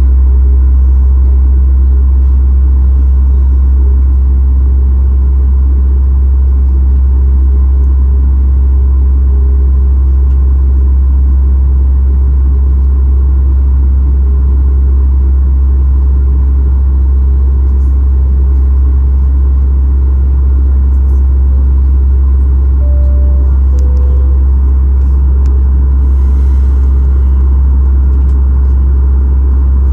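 Steady low rumble inside the cabin of a Boeing 737 MAX 8, its CFM LEAP-1B jet engines running with no change in pitch or level.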